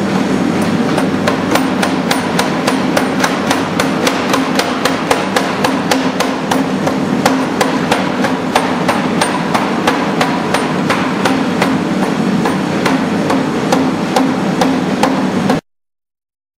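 A mechanical spring hammer strikes a red-hot carbon-steel carving-tool blank in rapid, even blows, several a second, forging its collar and tang over the machine's steady running noise. The hammering cuts off suddenly near the end.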